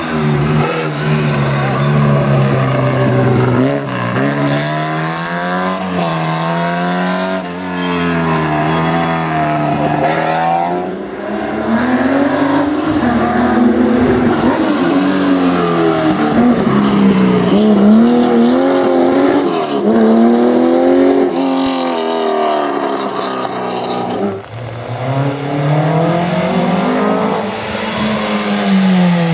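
Historic rally car engines driven hard on a stage. The engine note climbs and drops again and again through gear changes and lifts off the throttle. There is a short drop in level about 24 seconds in, and then an engine climbs again.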